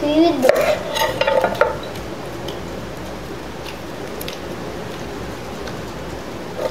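Jackfruit being handled in a steel bowl: a few faint light clicks and rustles over a steady background hiss. A short wavering voice sound comes in the first two seconds.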